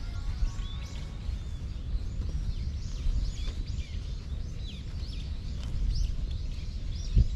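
Small birds chirping busily, short quick up-and-down calls several times a second, over a steady low rumble of wind or distant city noise, with a single thump near the end.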